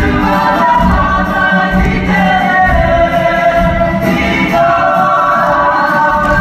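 A group of voices singing together in harmony, holding long notes that slide slowly from one pitch to the next.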